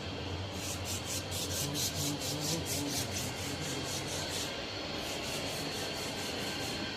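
Heavy-duty hydraulic metal-cutting bandsaw running with a steady motor hum, over which comes a rhythmic rasping of about four or five strokes a second as it cuts. The rasping breaks off for about half a second after four seconds, then resumes.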